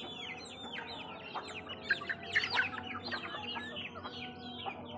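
A flock of hens and young chicks feeding, with a dense stream of short, high, falling peeps from the chicks over the hens' lower clucking.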